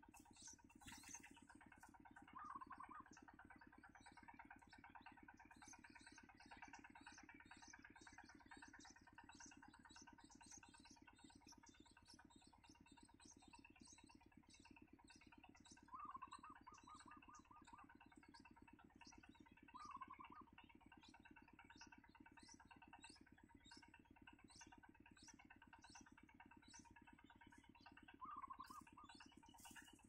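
Faint, repeated high-pitched bird cheeps, about one to two a second, over a low steady hum, with a few brief trills near the start, about halfway through and near the end.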